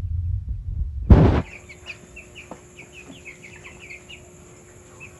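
A loud low rumble, broken by a sharp thump about a second in. After that comes the peeping of young broiler chicks: many short, high, falling chirps, several a second.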